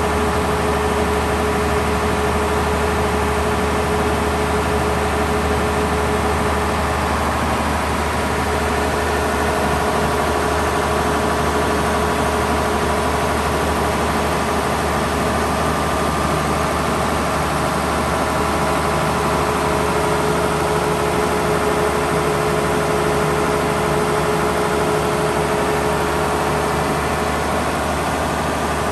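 Gardner 6LXB straight-six diesel engine of a 100 kVA generating set running at a steady speed, heard close up. The engine's low hum has a constant steady tone over it.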